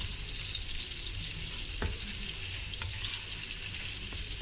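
Sliced onions and chopped bird's eye chillies sizzling steadily in hot oil in a wok as they are sautéed. A few light clicks come as they are stirred.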